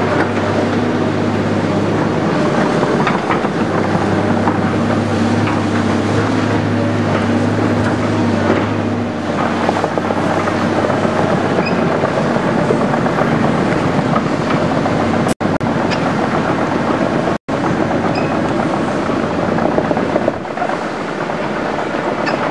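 Diesel engines of tracked hydraulic excavators running steadily, with scattered clanks and scrapes as the machines work and travel on rock and spoil; the nearest engine's low drone weakens after about nine seconds. The sound cuts out twice for an instant near the end.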